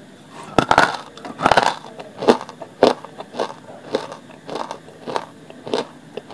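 A person biting into a hard lump of dry grey clay, with two loud crunches in the first two seconds. Then closed-mouth chewing follows, with crisp crunches about twice a second as the clay breaks up.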